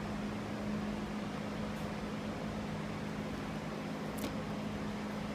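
Steady machine hum with a constant low tone under an even hiss, and a faint click about four seconds in.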